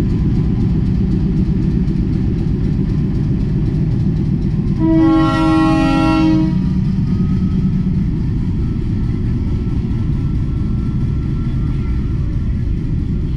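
Canadian-built Class M4 diesel locomotive passing close by at low speed, its engine running and wheels rumbling on the rails. About five seconds in it sounds its horn once for nearly two seconds, then the goods wagons roll past.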